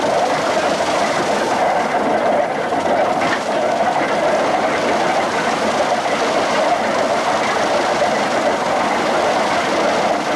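Wooden threshing mill running steadily as sheaves are fed into its drum: a loud, even, rattling drone that doesn't let up.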